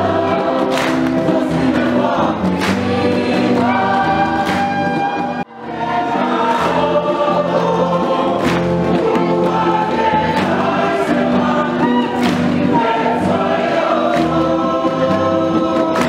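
A large group singing together in harmony, with sharp percussive beats through the song. The sound drops out for a moment about five and a half seconds in, then the singing carries on.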